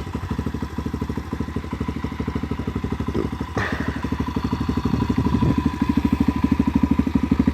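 Rebuilt Loncin 125cc single-cylinder four-stroke dirt bike engine idling steadily through an aftermarket exhaust, a fast even putter that grows a little louder in the second half. There is a single knock about three and a half seconds in.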